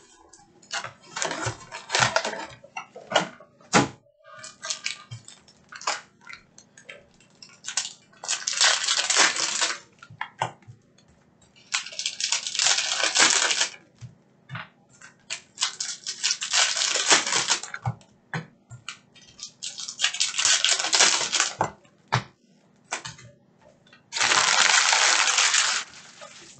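2018-19 Panini Prizm basketball cello packs being handled and opened by hand: steady crinkling and crackling of cellophane wrappers, broken by five longer rustling rips about every four seconds, the last the loudest and longest near the end.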